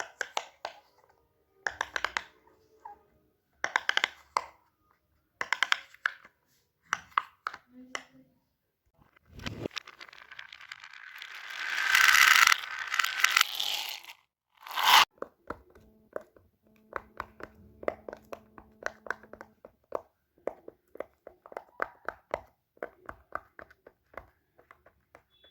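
Fidget toys being handled: short clusters of clicks and scrapes every couple of seconds, then a longer rising rustle that sounds like tearing, ending in one loud burst, followed by a run of quick small clicks.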